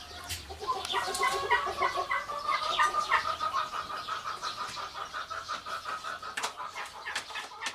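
Chickens clucking and calling, many short repeated notes overlapping, with a few sharp clicks near the end.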